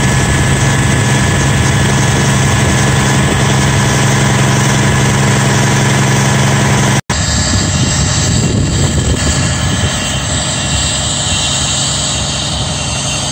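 Fire truck engines running steadily at a constant low hum that breaks off abruptly about seven seconds in. A rougher, hissier engine sound follows and slowly gets quieter.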